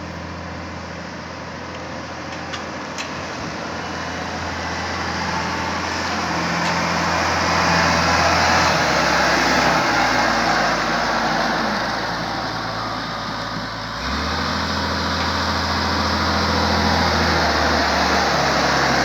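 Caterpillar loader's diesel engine running, growing louder over the first several seconds. Its low note drops about nine seconds in and jumps back up about fourteen seconds in as the engine speed changes.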